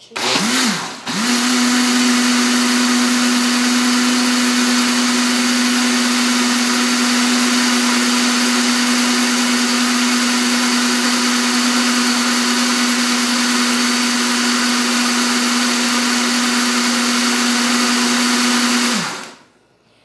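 Kitchen blender motor running on a load of vegetable oil and liquid and powdered detergent, whipping them into a creamy emulsion. It runs in a short burst, stops briefly about a second in, then runs steadily at a constant pitch for about eighteen seconds before cutting off.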